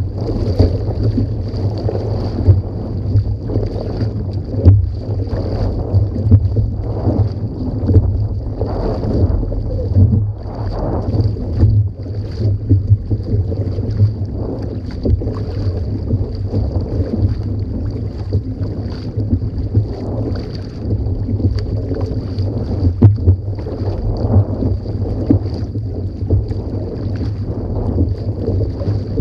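Sea kayak under sail and paddle, moving through choppy water: water rushing and splashing along the hull and paddle blades, with irregular splashes from the strokes. Wind buffets the microphone with a heavy low rumble.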